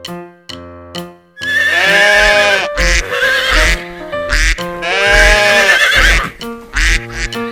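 A horse neighing: two long whinnies with a wavering pitch, about a second and a half in and again near the middle, with shorter calls between them. A simple keyboard tune plays under them and is heard alone at the start.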